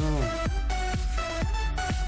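Electronic background music with a steady beat, about three beats a second, over heavy bass, with sustained synth tones that slide in pitch.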